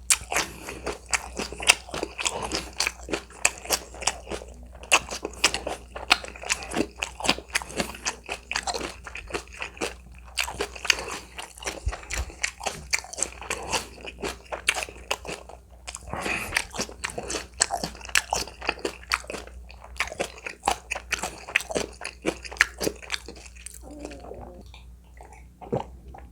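Close-miked eating: rapid, repeated crunching bites and chewing, most likely of crunchy napa-cabbage kimchi eaten with ramen. The crunching thins out near the end.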